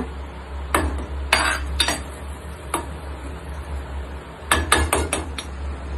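Metal spoon clinking and scraping against a pan while stirring pieces of mutton in masala, in scattered knocks that bunch up about a second in and again near the end. A steady low sizzle from the simmering pan runs underneath.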